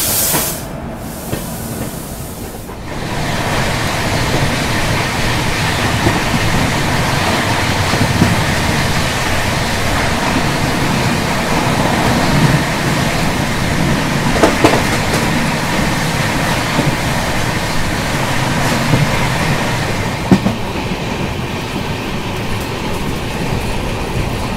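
Passenger train running, heard from an open coach door: a steady rumble of wheels on rail with rushing air. The noise swells about three seconds in as the train picks up speed leaving the station, and a few sharp clacks come from the wheels over rail joints.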